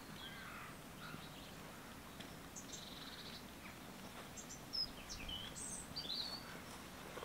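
Small birds chirping faintly, a scattering of short chirps and whistles over a low, steady background hiss.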